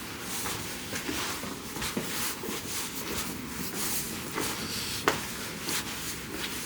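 Footsteps of a person walking, a run of short, even steps, with one sharp click about five seconds in.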